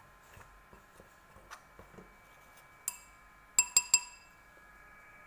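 A utensil clinking against a bowl while flour is mixed: a few small taps, then one ringing clink about three seconds in and three loud ringing clinks in quick succession shortly after, over a faint steady tone.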